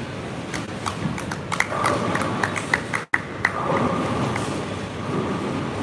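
Bowling pins clattering: a quick run of sharp, ringing clacks over the steady rumble of a busy bowling centre, with a brief dropout about three seconds in.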